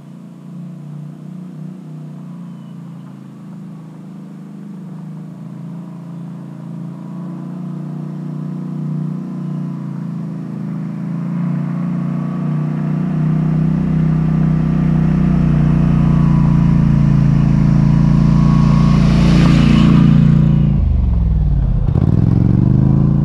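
ATV engine running as the quad rides toward the listener and grows steadily louder, then passes close by near the end, its pitch dropping as it goes.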